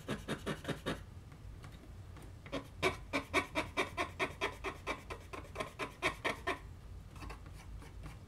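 Alcohol-soaked cotton swab scrubbed quickly back and forth over the plastic shell of an Athearn model locomotive, about four strokes a second, stripping off the factory decals. The scrubbing stops for a moment about a second in, then resumes and trails off fainter near the end.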